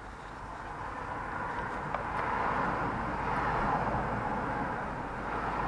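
A passing vehicle: its noise swells for a couple of seconds and then fades, with a faint click about two seconds in.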